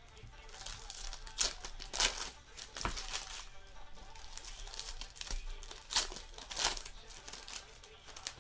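Foil trading-card packs being ripped open and crinkled by hand: a run of sharp crackling tears, the loudest about one and a half, two, three, six and six and a half seconds in, with softer rustling of the wrappers between them.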